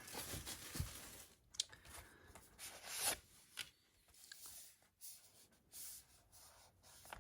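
Faint handling noise of a metal Blu-ray steelbook case being turned over in the hands: soft rubbing with a few light clicks and taps, the clearest about a second and a half and three seconds in.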